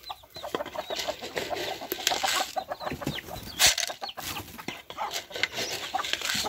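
Mixed backyard flock of hens and roosters clucking, many short falling clucks overlapping, while grain feed is thrown and scatters onto the dirt among them.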